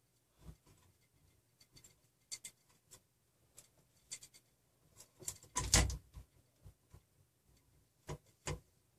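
Hands handling a stepper motor and its plastic shaft coupling on a 3D-printer frame: scattered small clicks and knocks of parts, a louder rattle of handling about halfway through, and two knocks near the end.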